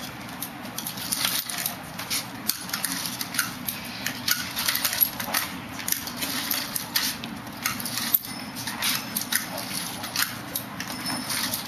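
Aluminium folding walker clicking and clattering on a concrete walkway as it is lifted and set down with each slow step, many light metallic taps at an uneven pace.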